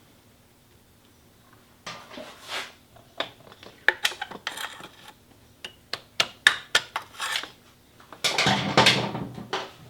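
Hand work with tools on small hard parts: after a quiet start, irregular sharp clicks, taps and knocks, then a longer, louder scraping rub near the end.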